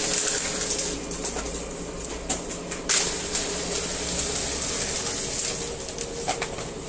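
Cardboard being sliced into strips by the rotary circular knives of a RIDER strip-cutting machine: a steady high hissing rasp over a faint machine hum, with a couple of sharp clicks about two and three seconds in.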